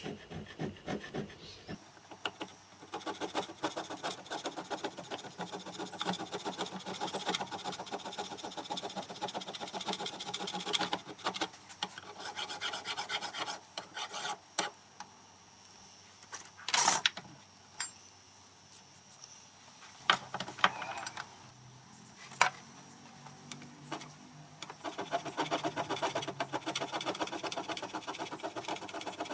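Hand filing of a metal part, a run of steady rasping strokes, taking down a six-thou step to flatten its mating face. About halfway through the strokes stop for a while, with a few sharp knocks, then resume near the end.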